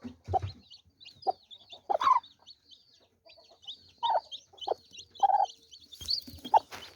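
Chicks peeping continuously in a stream of short, high falling chirps, while a hen clucks low at intervals of about a second. A brief rustling noise comes near the end.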